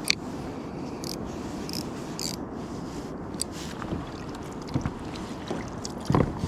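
Kayak rocking on the water with a steady wash of water and wind, broken by scattered light clicks and a louder hollow knock near the end.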